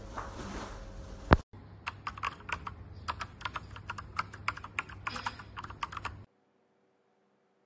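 Typing on an AKKO MOJIKE GK1 mechanical keyboard with AKKO v2 switches: an irregular run of separate key clicks lasting about five seconds, then it stops. Before the typing starts there is a steady background noise and one sharp, loud click.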